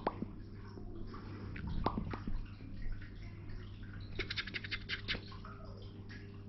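Newborn baby hiccupping: a short sharp hic right at the start and another about two seconds in, over a low steady hum. A quick run of about eight light clicks follows a little past four seconds in.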